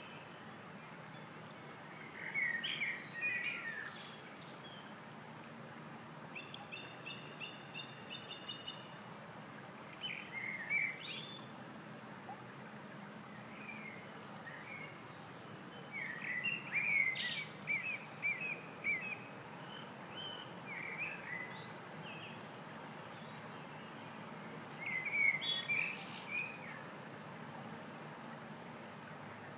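Songbirds singing in short phrases and trills that come and go, loudest about halfway through and again near the end, over the steady rush of a shallow stream running over stones.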